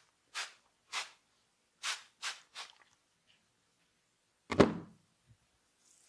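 Massage strokes of hands slapping on skin: five quick, light slaps in the first three seconds, then one much louder, heavier hit about four and a half seconds in.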